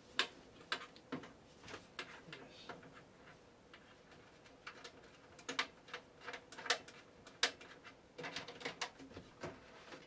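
Irregular light clicks and taps of hands handling the inside of a steel computer case, with a quieter stretch in the middle.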